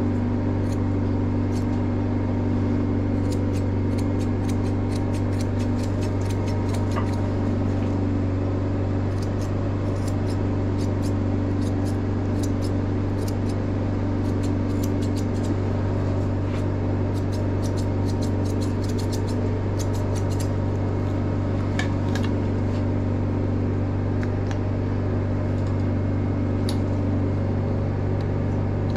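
Grooming shears snipping through a dog's coat in quick runs of crisp clicks, over a steady low machine hum that is the loudest sound throughout.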